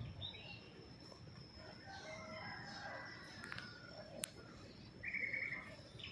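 Faint animal calls: a drawn-out pitched call from about two seconds in, then a short run of rapid chirps near five seconds, with a single sharp click just after four seconds.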